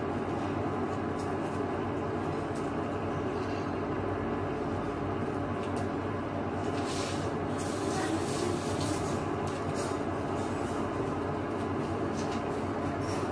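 Steady whirring drone of a kitchen range hood exhaust fan, with a faint hum under the rushing air.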